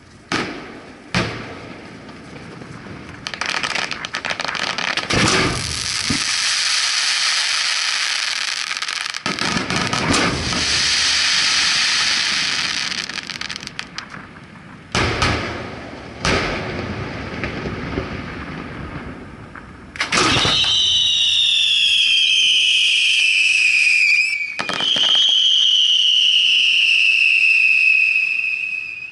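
Aerial fireworks firing at very close range from the launch barge: several sharp launch and burst bangs, with a long crackling, hissing rush between them. About two-thirds in come two long, shrill whistles in a row, each falling slightly in pitch, from whistling fireworks.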